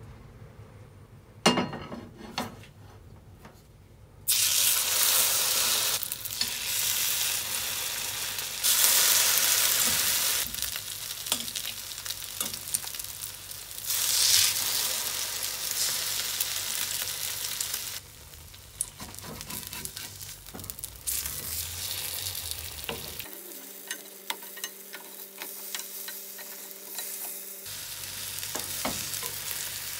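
Food frying in a hot pan. A couple of knocks come first, then loud sizzling starts about four seconds in and carries on, swelling and easing.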